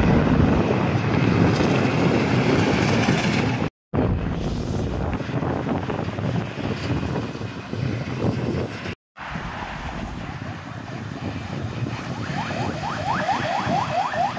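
Heavy trucks driving past on a highway: loud engine, tyre and wind noise, with the sound cutting out briefly twice. Near the end comes a quick run of short rising whistles.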